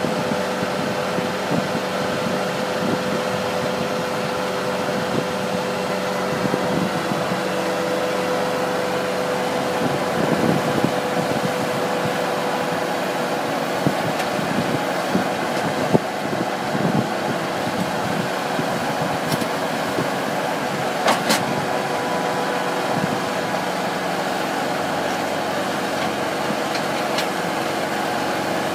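Compact track loader's diesel engine running steadily under load while its hydraulic auger drive turns a steel ground screw into dry soil, with a few brief sharp knocks partway through.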